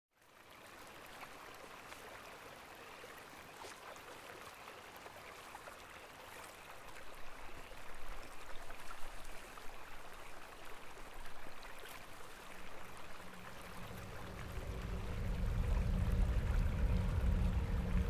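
Running water trickling steadily, like a small stream. About two-thirds of the way in, a low droning hum with a few steady tones swells in and grows louder.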